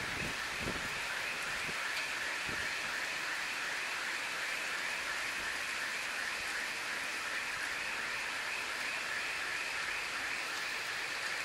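Heavy rain falling steadily, an even hiss, with a fast, regular pulsing noise running through it.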